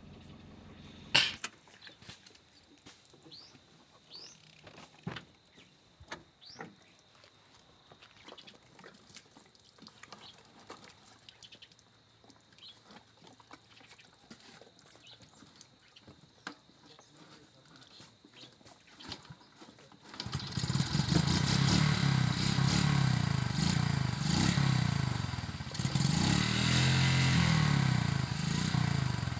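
Quiet outdoor ambience with scattered small clicks and one sharp knock about a second in, then a motor vehicle engine starts running loudly about two-thirds of the way through, its pitch wavering as it revs.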